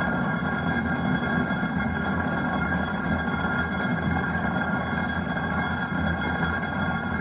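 Stone flour mill running, its millstones grinding wheat with a steady, unbroken rumble and a few constant high tones over it.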